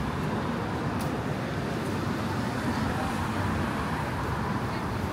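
Steady traffic noise on a busy city street: vehicles running past in an even wash of sound, with no single standout event.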